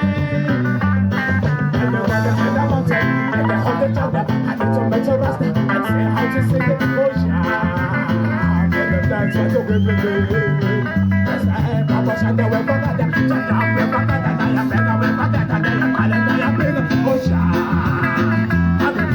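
Live band music: guitar playing over a steady, repeating bass line, loud and continuous.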